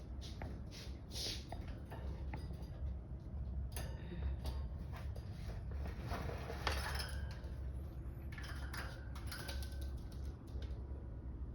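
Cockatiels moving about their cage: scattered light clicks and clinks, with a few short faint chirps, over a steady low hum.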